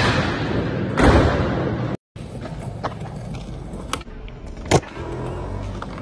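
Skateboard wheels rolling hard with a loud hit about a second in. After a brief cut, sharp pops and clacks of the board on concrete, the loudest just before five seconds in.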